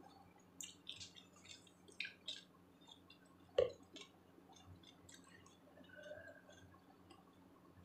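Crunchy chewing of raw cucumber and carrot salad, with scattered small crisp clicks and one sharp knock about three and a half seconds in.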